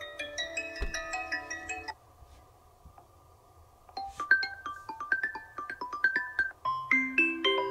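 Xiaomi 12 phone ringtones: a chiming tune cuts off about two seconds in, and after a short pause a new ringtone starts with quick high notes, joined by lower notes near the end.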